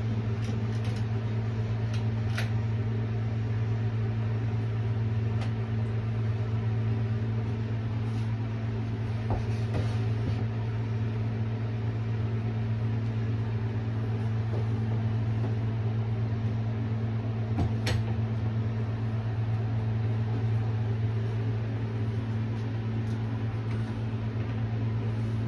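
Steady low electric hum, like a fan motor running, with a faint sharp click about two seconds in and another near eighteen seconds.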